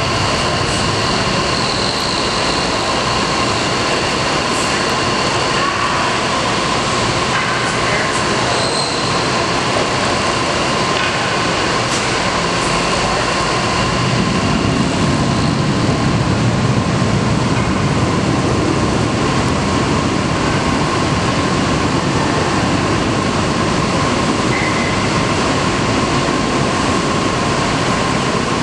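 Aircraft tow tug running steadily: a constant whine over a steady rushing noise, with a low rumble that swells about halfway through.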